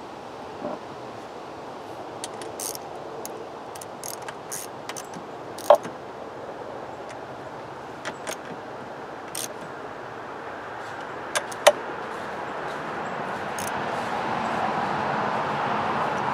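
Irregular metallic clicks and clinks from a small ratchet wrench and bolts while fastening a voltage regulator and its metal cover plate on an outboard motor, two of them sharper and ringing briefly. A steady rushing background noise swells over the last few seconds.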